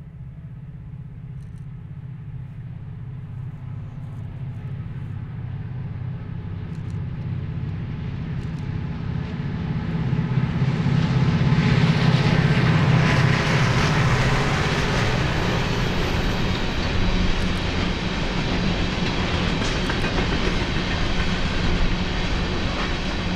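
Diesel locomotives on a train approaching, their engine hum growing steadily louder for about twelve seconds. A broad rushing noise joins it as the train draws close, and the sound then stays loud and steady as the train passes.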